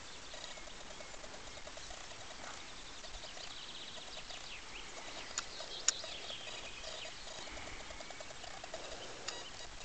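Small birds singing and calling, with short repeated notes and quick higher trills, over a low steady outdoor hiss. Two sharp clicks come a little after the middle and one more near the end.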